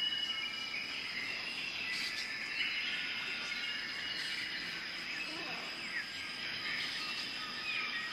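Tropical rainforest ambience: a steady, high insect drone under a chorus of birds chirping and whistling, with a few quick gliding calls partway through.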